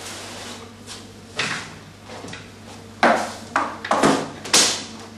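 Knocks and short scrapes from handling wooden swarm boxes: one about a second and a half in, then a quick run of four loud ones between about three and five seconds in. A steady low hum runs underneath.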